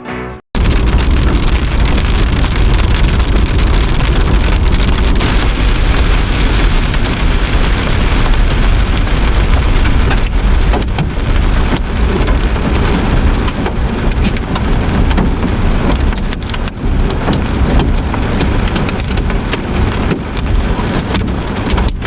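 Heavy storm downpour drumming on a vehicle, a dense rush of sharp hits over a deep rumble, cutting in suddenly about half a second in.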